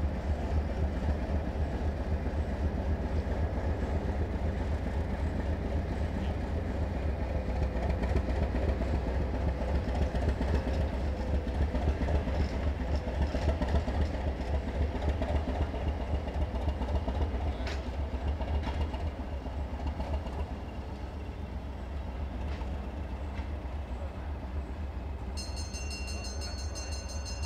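Hampshire DEMU diesel-electric unit's English Electric four-cylinder diesel engine thumping steadily under power as the train pulls away, with a few wheel clicks over the rail joints; the sound fades after about twenty seconds.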